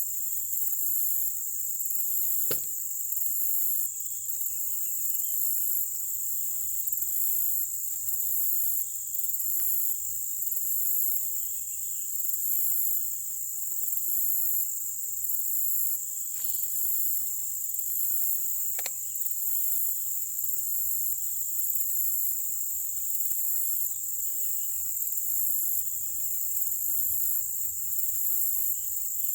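Steady high-pitched insect chorus, crickets or similar, with a constant buzz and a faster pulsing trill above it. A few sharp clicks break through, about two seconds in and twice more past the middle.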